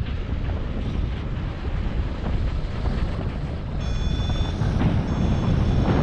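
Wind rushing over an action camera's microphone in paraglider flight. An electronic variometer tone beeps twice in the second half, each time lasting under a second.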